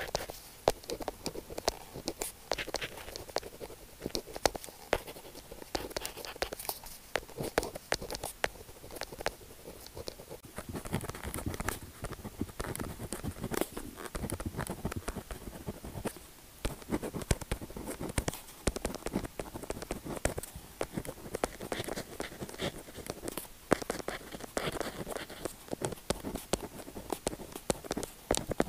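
Pen tip scratching across paper in quick, irregular strokes, with many small sharp ticks as it touches and lifts.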